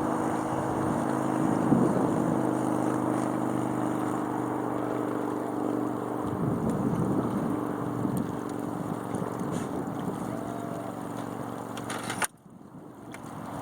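Wind rushing over the microphone of a mast-mounted camera on a small sailboat under way, a steady noisy rush with a low drone in it. It drops away abruptly near the end.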